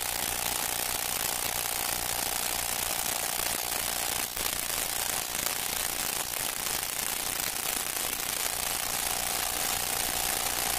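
Steady hiss and crackle with a faint steady tone underneath, the surface noise of an old film soundtrack.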